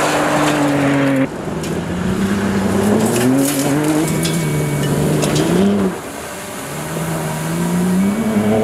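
RAM 1500 RHO's twin-turbo 3.0-litre Hurricane H/O straight-six under hard acceleration on dirt, its note climbing several times as the truck pulls through the gears. The sound jumps abruptly about a second in and again near six seconds, where the footage cuts between passes.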